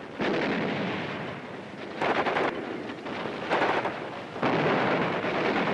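Battle sounds: a run of explosions with long rumbling tails, new blasts setting in about two, three and a half, and four and a half seconds in.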